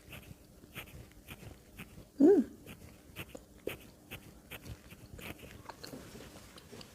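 Close-up chewing of a pandan mooncake studded with kuaci seeds: soft wet mouth smacks and small crunchy clicks. A short hummed 'mm' comes about two seconds in.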